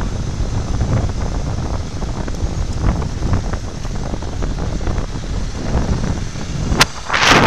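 Wind buffeting the microphone of a camera held out from a moving motorcycle, over a low engine rumble. Near the end there is a sharp click, then a sudden louder rush of wind noise.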